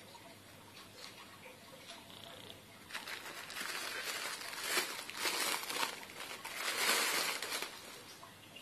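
Plastic packaging crinkling and rustling as it is handled, starting about three seconds in, loudest around the middle and again near the end, then dropping back to faint handling noise.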